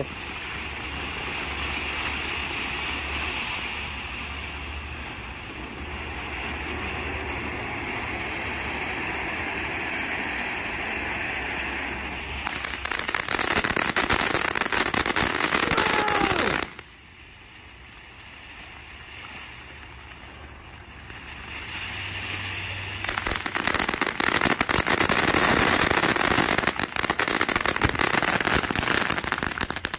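TNT 'Bring The Bang' ground fountain firework spraying sparks with a steady hiss, broken by two long spells of dense titanium crackle: the first from about twelve seconds in, lasting some four seconds, the second from about twenty-three seconds in.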